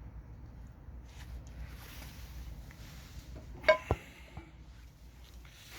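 Metal parts of a small sheet-metal wood-burning stove being handled: a sharp clank that rings briefly, a little past halfway, then a second shorter knock, over faint rustling and a low rumble.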